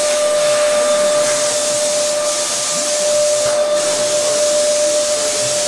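Machinery running with a steady hiss and a constant mid-pitched whine.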